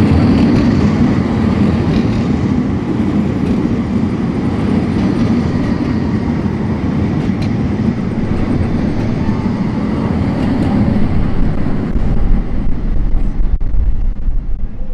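Steady rumble of a passing vehicle. From about twelve seconds in, it gives way to gusty wind buffeting the microphone.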